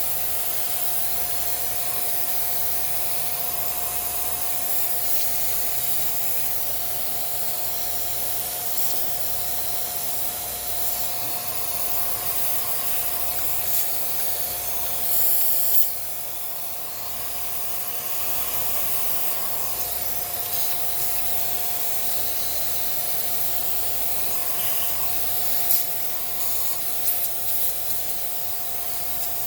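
Small vacuum cleaner running steadily with a constant whine, sucking dust out of the old sewing machine's mechanism; a few brief knocks near the end.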